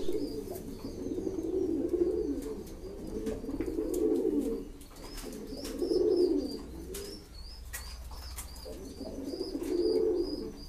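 Mukhi pigeons cooing: low, throaty warbling coos in four or five phrases a couple of seconds apart. A faint high chirping repeats in the background, about two or three a second, from about halfway through.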